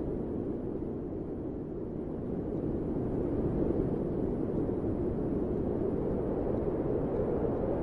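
A steady, low rushing rumble of noise with no distinct tones, slowly growing louder.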